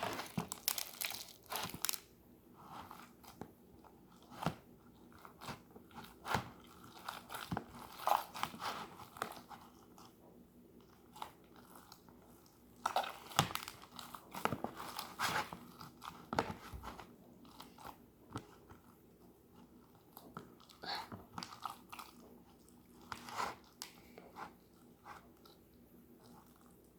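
Hands squishing and kneading slime mixed with Play-Doh: irregular short clicks and squishes come in clusters, with quiet gaps between them.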